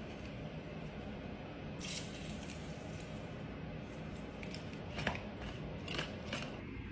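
Hand-held metal lemon squeezer being pressed shut on a lemon, with a short squirting hiss about two seconds in, then several light clicks and knocks as the squeezer is set down and the plastic blade base is fitted onto the blender jar, over a steady low background noise.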